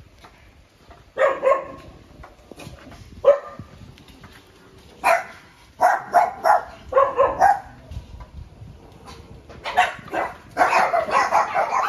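Dogs barking: a few separate barks at first, then many dogs barking together near the end.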